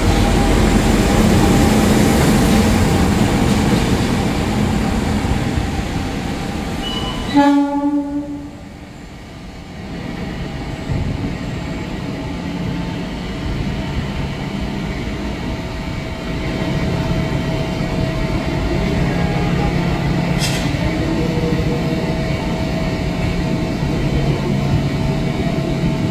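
KAI CC 206 diesel-electric locomotive passing close by, with loud engine and wheel noise and a short horn blast about seven seconds in. After that, the steady diesel drone of another CC 206 approaching head-on, growing louder toward the end.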